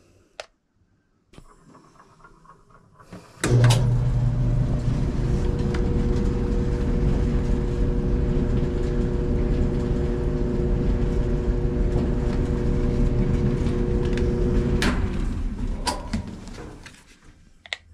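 Whirlpool WED5300VW0 clothes dryer starting up: the motor comes on suddenly a few seconds in and the drum runs with a steady hum and rumble for about eleven seconds, then it shuts off and the rumble dies away over a couple of seconds. A few clicks come before the start and near the end.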